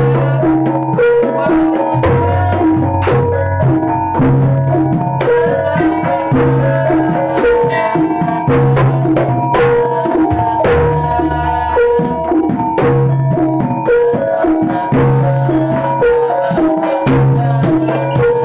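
Javanese jaranan ensemble playing: hand drums beat a steady rhythm under tuned metal gamelan instruments striking short repeating notes, with one high tone held throughout.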